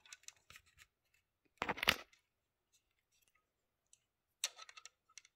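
Pistol-calibre cartridges being pressed by hand into a Grand Power Stribog magazine, each round clicking as it snaps down into place. There are two louder clusters of clicks, about two seconds in and again near the end, with faint clicks between.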